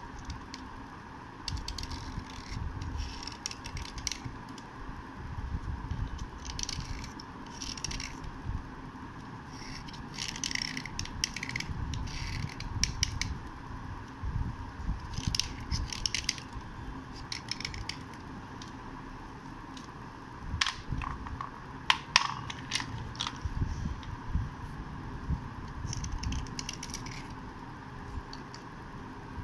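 Utility-knife blade scraping a dry white slate pencil, short scratchy strokes coming in uneven runs as slate chips flake off.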